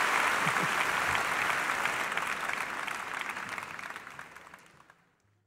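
Audience applauding, a dense patter of clapping that fades steadily away to silence about five seconds in.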